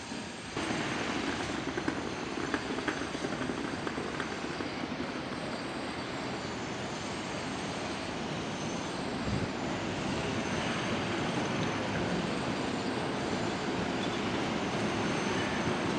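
Tram running along its street track as it approaches, a steady rumble that grows gradually louder, with a few faint clicks early on.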